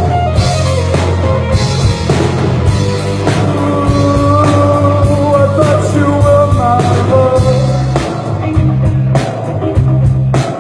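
Rock band playing live: electric guitar, bass and drum kit, with a held, wavering melody line over steady bass notes and regular drum hits.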